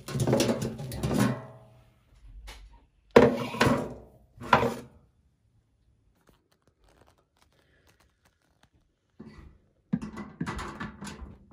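Handling noises: thuds and rustles of objects being moved about, in three short bouts with a quiet spell in the middle.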